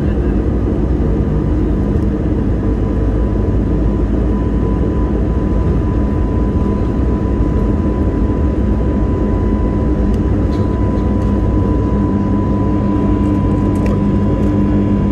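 Steady jet-engine hum and cabin rumble inside an Airbus A321 taxiing, with a thin steady whine above the rumble and a few faint clicks near the end.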